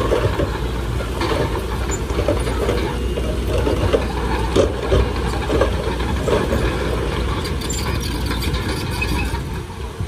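Heavy diesel earthmoving machinery running steadily, with a low engine drone and irregular clanks and knocks throughout.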